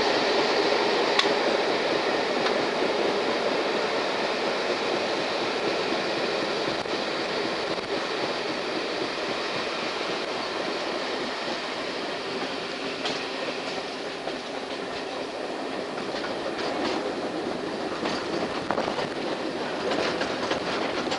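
Train running noise heard from a passenger coach: a steady rush and rumble of wheels on rail, with occasional sharp clicks from the wheels, more of them near the end.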